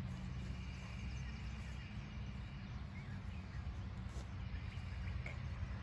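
Outdoor ambience: a steady low rumble of wind on the microphone, with a few faint, scattered bird chirps.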